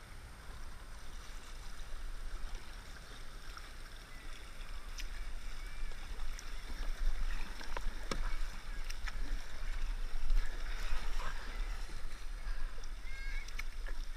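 Paddle strokes and water rushing along the hull of a sit-on-top fishing kayak, under a steady low rumble of wind on the microphone, with a few sharp clicks and short chirps.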